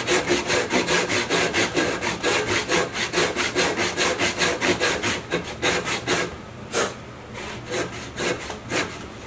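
Disston backsaw ripping down a tenon cheek in honey locust, in quick, even back-and-forth strokes of the teeth through hard wood. About six seconds in the strokes turn lighter and further apart.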